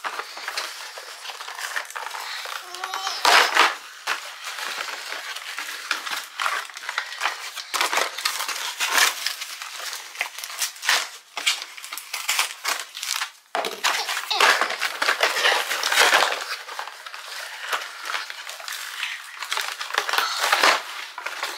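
Cardboard box being pulled apart and torn open by hand: irregular ripping, crunching and scraping of cardboard with sharp cracks, pausing briefly about two-thirds of the way through.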